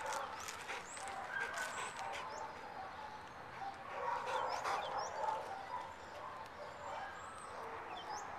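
Dogs barking and yipping in scattered short calls, with brief high bird chirps over them.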